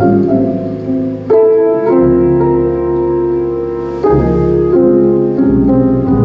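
Slow jazz ballad played by a piano, guitar and bass trio, with piano chords to the fore and low bass notes underneath, the harmony changing every second or two.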